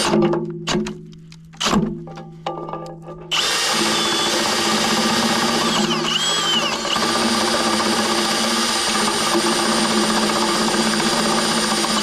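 Milwaukee Fuel cordless drill boring out holes in a steel plate, first in a few short bursts, then running steadily from about three seconds in.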